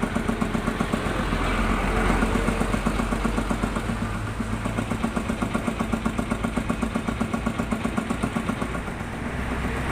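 A vehicle engine idling with a steady, even throb of about five pulses a second. Near the end the sound swells as more traffic comes in.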